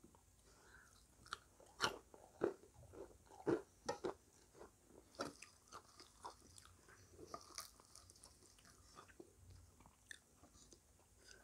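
Chewing and crunching of crispy fried snacks, a run of irregular soft crackles and clicks that is busiest in the first four seconds and thins out after.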